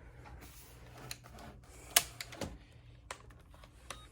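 Light handling noise of the VGA cable and equipment: scattered small clicks and taps, with one sharper click about two seconds in.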